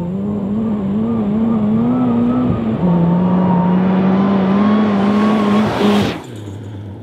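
Ariel Nomad's Honda 2.4-litre four-cylinder engine revving high as the car is driven hard over loose gravel, with the note wavering and stepping down about three seconds in. About six seconds in it rushes past close by with a hiss of thrown gravel and dust. It then drops to a much lower, quieter note.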